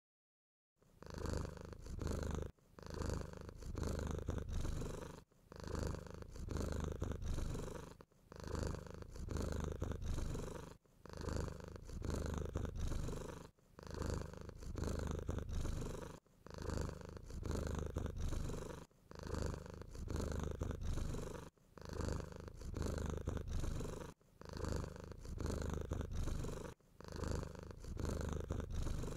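A domestic cat purring steadily, in long low strokes broken by a short pause about every two and a half to three seconds as it breathes. The purring starts just under a second in.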